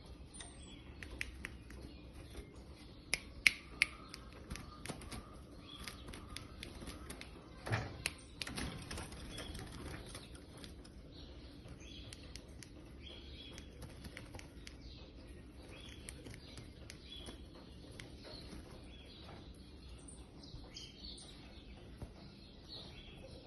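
Sabiá (thrush) giving short, high chirps scattered throughout, with a cluster of sharp clicks a few seconds in and a louder thump about eight seconds in.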